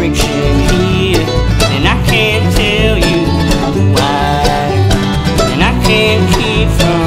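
Acoustic bluegrass band playing a song on fiddle, mandolin, banjo, acoustic guitar and upright bass, with the bass keeping a steady pulse underneath sliding fiddle lines.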